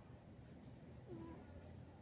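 Sleeping cat snoring faintly, with a short squeaky whistle on one breath about a second in.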